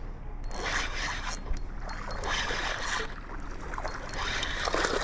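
Reeling in a hooked bass: a fishing reel cranking with a rasping, ratchety rattle, mixed with water sloshing as the fish is fought.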